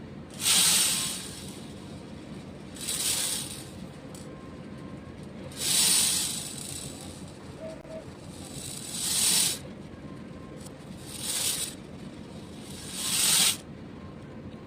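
Beads being poured in six short pours, each lasting under a second, a couple of seconds apart.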